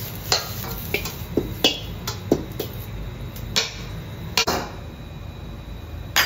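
Metal ladle knocking and scraping against an iron wok as fried rice is scooped out, about eight sharp clinks at uneven intervals, one of the loudest near the end. Under them runs the steady low rumble of the gas wok burner.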